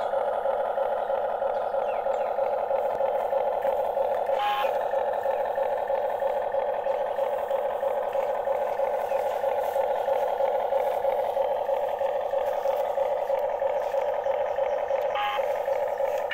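Radio-controlled toy excavator running: a steady, even mechanical whirring hum, with two brief clicks, about four and fifteen seconds in.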